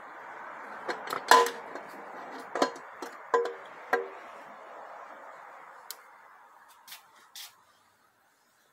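Metal transmission parts clinking and knocking against each other inside the 6R80 automatic transmission case as internal components are worked loose by hand: about five sharp, briefly ringing clinks in the first four seconds, over a steady hiss that fades away near the end.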